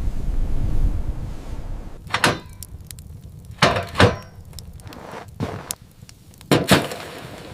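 A low wind rumble for the first two seconds, then it stops and a series of sharp knocks and thuds follows, about seven in all, some in quick pairs, the loudest about four seconds in and near the end.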